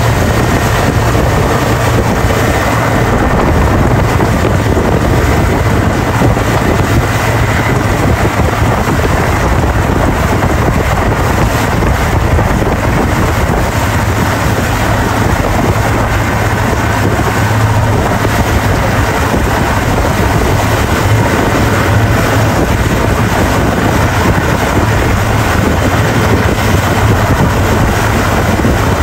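Motorboat engine running steadily at speed while towing, with heavy wind buffeting the microphone and the rush of the churning wake.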